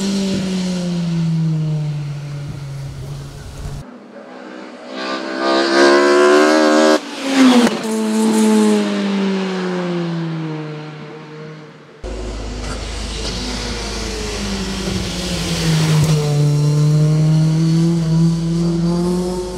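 Opel Kadett C hillclimb race car's engine at full throttle. Its pitch climbs hard under acceleration, drops sharply at a gear change or lift-off, then falls away slowly, and it climbs again as the car passes close by.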